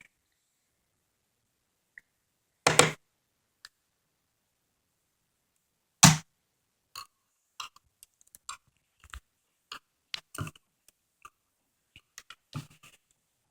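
Plastic case clips of an RCA 10-inch tablet clicking and snapping as the back cover is pried open: two louder snaps about 3 and 6 seconds in, then a run of small irregular clicks.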